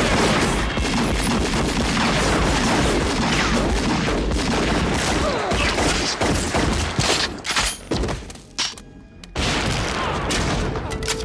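Heavy gunfire in a shootout: many shots overlap in a near-continuous barrage. After about eight seconds it thins to scattered shots, with a short lull about nine seconds in.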